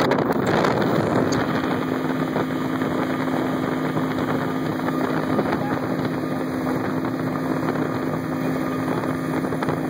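Outboard motor of a Tracker Pro Team 185 bass boat running steadily at planing speed, a low even drone under rushing wake water and wind noise. The wind buffets the microphone in the first second, then eases.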